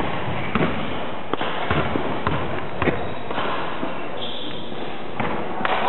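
A basketball bounced several times on a wooden gym floor, about two bounces a second, as the shooter dribbles before a free throw, over a steady hall hiss. There is a short high squeak about four seconds in and one more thud near the end.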